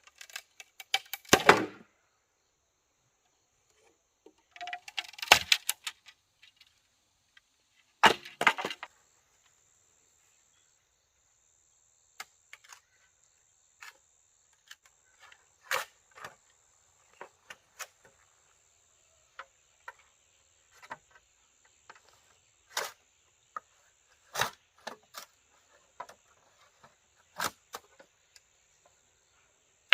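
Wooden knocks and clatter: three bursts in the first nine seconds, then single scattered knocks every second or two. A steady high insect drone starts about four seconds in and runs behind them.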